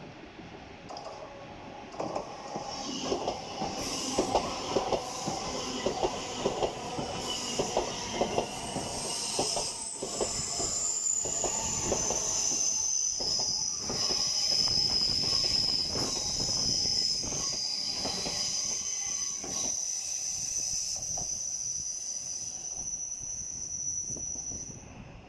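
LNER Azuma passenger train passing on curved track: its wheels click over rail joints for the first several seconds, then a high, steady wheel squeal sets in and lasts until near the end.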